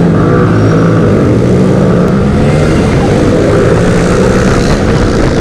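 Royal Enfield Himalayan single-cylinder motorcycle engine running hard at high revs as the bike accelerates away in a drag race, with other bikes close alongside.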